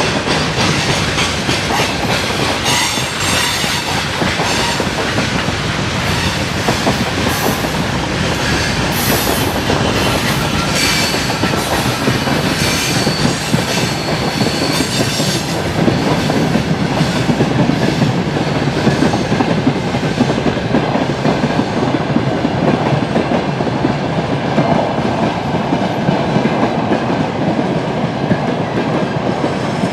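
Railway wagons rolling past on the track, wheels clattering over the rail joints. High-pitched wheel squeal comes mostly in the first half.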